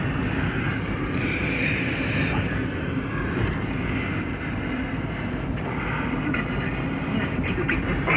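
Steady road and engine noise heard from inside the cabin of a 2004 Ford Escape driving, with a brief rush of hiss about a second in.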